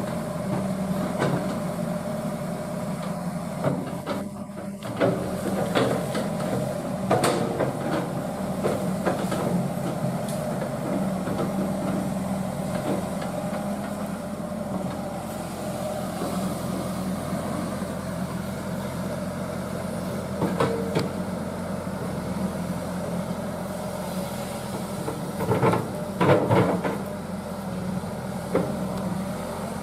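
Hydraulic excavator's diesel engine running steadily, with occasional sharp cracks and knocks, the loudest a cluster near the end.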